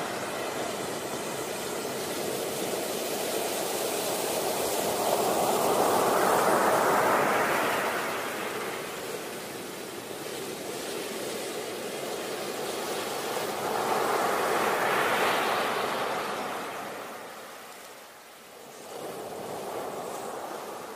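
Ocean surf: waves breaking and washing in as a steady rushing noise that swells twice, about eight seconds apart, then eases off briefly near the end before the next wash.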